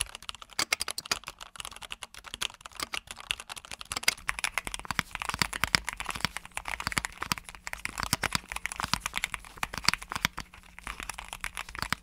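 Fast typing on a Keychron K8 Pro mechanical keyboard, a rapid stream of key clicks. About four seconds in it changes to typing on a Keychron Q1 HE keyboard with magnetic Hall effect switches.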